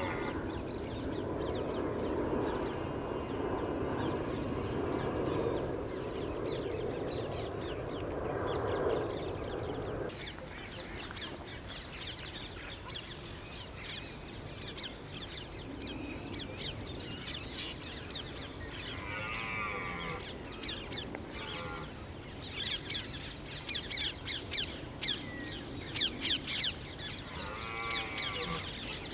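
Outdoor dawn ambience: a low, steady rumble for about the first ten seconds, which cuts off abruptly. After that, birds calling: many short, harsh calls that grow busier in the last few seconds, and a few longer calls that slide in pitch.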